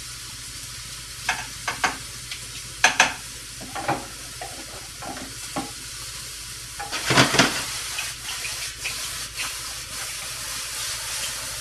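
Stovetop cooking: a steady sizzle from a pan on the stove, with scattered clinks and scrapes of metal utensils against a pot and bowl. The loudest clatter comes about seven seconds in.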